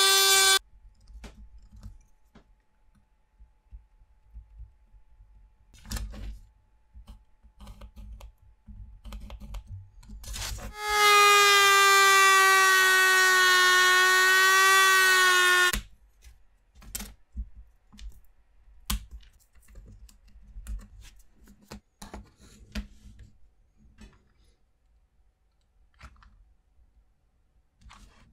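Handheld rotary tool whining at high speed; it cuts off about half a second in. Around eleven seconds in it runs again for about five seconds with a cut-off disc trimming popsicle-stick wood, the whine dropping slightly under load. Between and after, light clicks and taps of wooden craft sticks being handled and set down.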